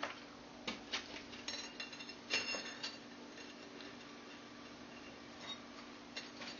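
Thin steel binding wire being handled and laid around a brick forge body: a scatter of light metallic ticks and clinks in the first three seconds, then only a faint steady hum.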